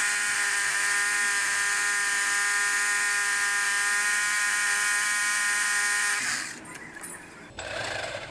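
Electric power drill running at a steady speed with a constant high whine, stopping about six seconds in. A brief scraping noise follows near the end.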